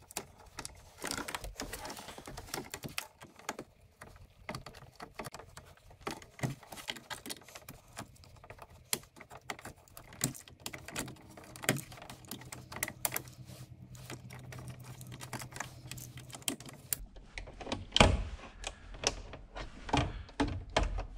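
Utility knife blade scraping and cutting around a soft plastic switch-blank cutout in a UTV dash panel: a quick, irregular run of small clicks and scrapes, with a few louder knocks near the end as the piece is worked free.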